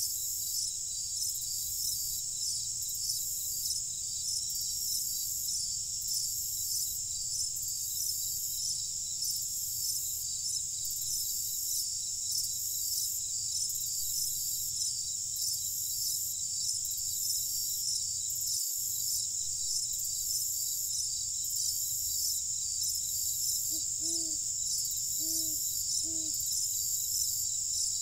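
A dense night chorus of crickets: a steady, high-pitched trilling that pulses evenly. Near the end come three short, low calls.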